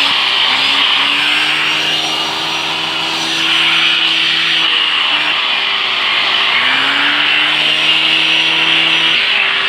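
Vacuum cleaner running, sucking air through an air-driven turbo brush. The brush turbine's whine rises in pitch as it spins up about half a second in, drops away around the middle, then spins up again about two-thirds through.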